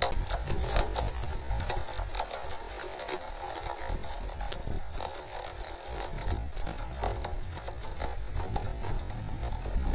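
Rain pattering close to the microphone: a dense crackle of drop hits over a steady low rumble.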